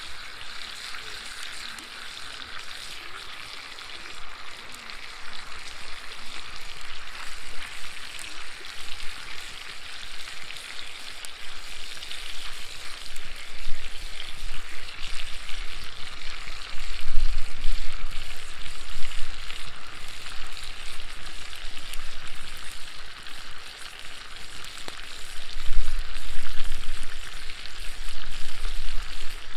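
Tomahawk steak sizzling in butter in a cast-iron skillet over an open wood fire: a steady frying hiss. A couple of low rumbles come in about halfway through and again near the end.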